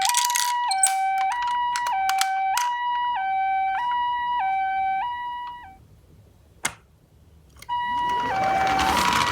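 Japanese ambulance 'pee-po' two-tone siren, a high tone and a lower tone alternating about every two thirds of a second, with scattered sharp clicks of the metal toy minicars knocking together. About six seconds in the siren stops, leaving near silence with a single click, then resumes near the end under a loud noisy rush and clatter of the minicars rolling down the slope.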